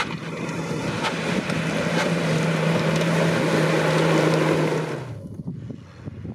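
Engine of a Nissan Patrol Y60 off-road 4x4 running hard at high revs as it drives over rough ground. The steady engine note climbs slightly and grows louder, then drops away sharply about five seconds in.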